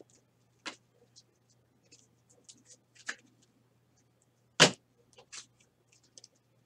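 Trading cards in plastic sleeves and rigid toploaders being handled and shuffled: scattered light clicks and taps, the loudest a little after halfway, over a faint steady low hum.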